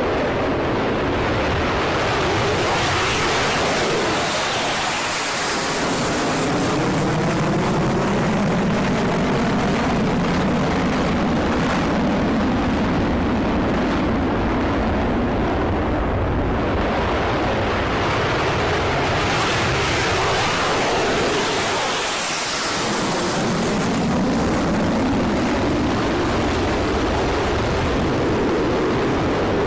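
Jet noise from F-15E Strike Eagle twin engines at take-off power as the jets take off one after another. It is a loud, continuous rush, and it swells with a wavering, phasing sweep twice, about five and about twenty-two seconds in, as each jet goes past.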